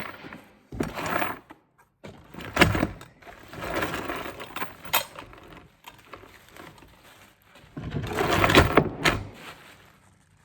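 A 2-ton chain hoist being handled, its oily chain and body rattling and clinking in several bursts, with a few sharp knocks. The loudest burst comes near the end.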